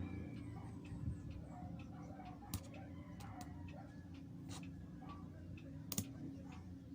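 Scattered small clicks and taps at irregular intervals, the sharpest about two and a half and six seconds in, from small tools and parts being handled while working on a GoPro Hero 4 Silver's lens, over a steady low hum.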